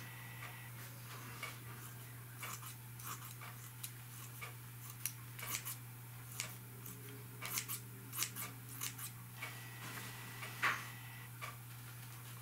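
Scissors cutting through black mesh netting: a run of quick, irregular snips, over a faint steady low hum.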